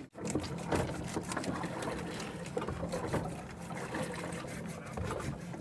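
A kitchen knife scraping and cutting a fish on a plastic cutting board, in a run of short irregular scrapes and knocks, while preparing it for sashimi. Under it runs the steady low hum of the boat's engine.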